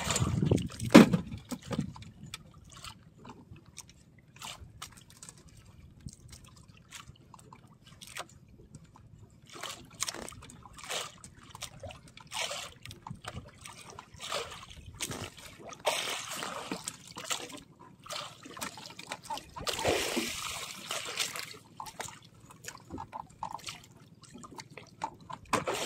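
Sea water slapping and sloshing against the hull of a small outrigger boat in short, irregular splashes. There is a loud knock about a second in and a longer wash of splashing around twenty seconds in.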